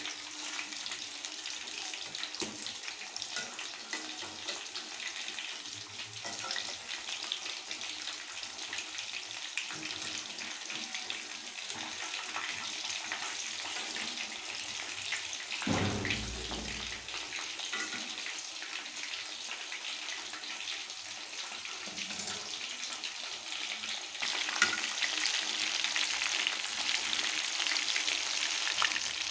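Marinated chicken 65 pieces deep-frying in hot oil: a steady, dense crackling sizzle. A low thump comes about halfway through, and the sizzle grows louder for the last few seconds.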